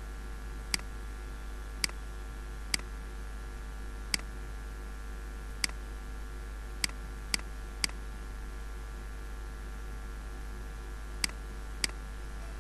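Computer mouse button clicking: about ten single, sharp clicks at uneven intervals, a few in quick succession, over a steady background hum and hiss.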